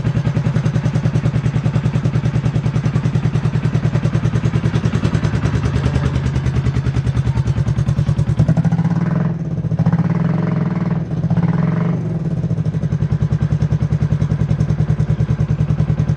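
Honda CB350 motorcycle engine idling with an even, steady exhaust beat. About halfway through its note changes for a few seconds, with two brief surges, and then it settles back to the same steady idle.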